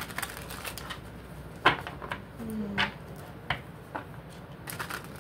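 Tarot cards handled on a table: a handful of scattered sharp clicks and snaps, the loudest about a second and a half in and a small cluster near the end, with a short hummed voice sound midway.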